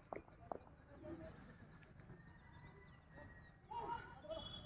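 Faint open-air ambience of a sports ground with distant voices, briefly louder a little before the end, and two sharp clicks near the start.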